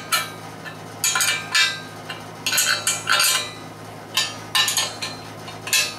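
Steel wrench clinking against the nuts and steel base plate while tightening the concrete anchor bolts of a bench grinder stand: a series of short, irregular metallic clinks over a steady low hum.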